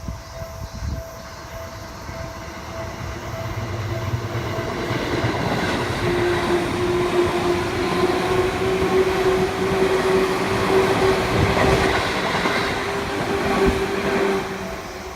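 A Seibu Shinjuku Line train passing over a level crossing. It builds up over the first few seconds, is loudest through the middle with a steady whine, and fades near the end. The crossing's warning bell rings in repeated strokes at the start.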